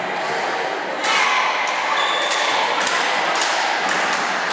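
Echoing sports-hall din during a volleyball match: a steady hubbub from the players and the hall, with scattered sharp knocks and thumps from about a second in.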